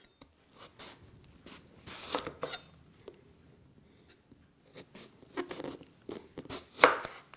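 A large kitchen knife slicing through a whole eggplant into rounds and knocking on a wooden cutting board. The cuts come as a run of separate crunching strokes, with the loudest near the end.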